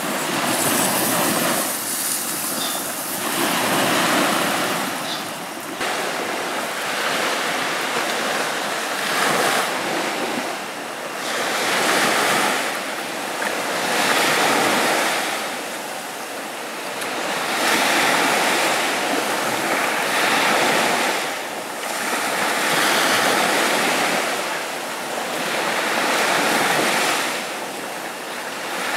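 Sea waves breaking on a sandy beach: a continuous wash of surf that swells and fades in slow surges every few seconds.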